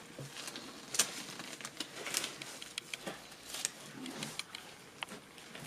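Irregular light clicks and taps of small objects being handled, with a sharper click about a second in.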